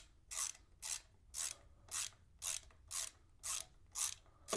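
Hand ratchet loosening a 5 mm bolt, its pawl clicking in short rasping runs about twice a second, one run per swing of the handle.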